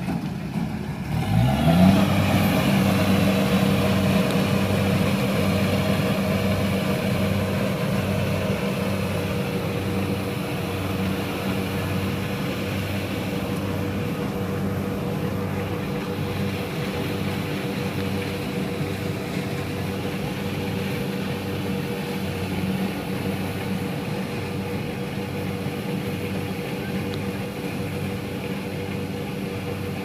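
Kubota rice combine harvester's diesel engine speeding up about a second and a half in, then running steadily at working speed with a steady hum over it, slowly growing fainter as the machine moves off.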